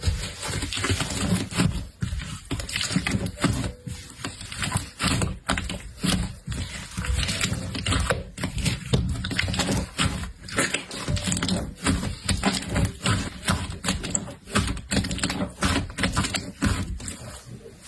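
Slime being squished and worked by hand, giving a dense, irregular run of wet clicks and crackling pops.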